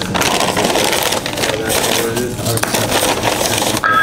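Crinkling and rustling of a paper fast-food bag and paper fry container as waffle fries are shaken out into a plastic tray. A steady electronic desk-phone ring starts near the very end.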